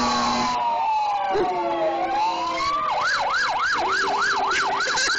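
An emergency vehicle's siren winds slowly down in a long wail, then about three seconds in switches to a fast yelp of two to three rises a second. A German Shepherd howls along with it.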